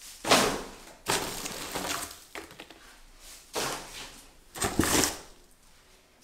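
Crinkled cardboard packing material rustling and crunching as it is pulled out of a large cardboard box by the handful, in several short bursts.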